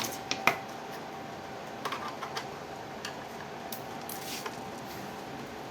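Small plastic clicks and knocks of an MXQ Pro TV box's case being handled and opened: a quick run of snaps at the start, more around two seconds and near four seconds, over a faint steady hum.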